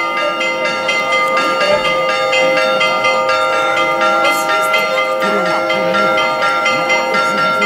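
Church bells pealing: several bells struck rapidly over and over, their tones ringing on and overlapping, as rung for an Orthodox icon procession.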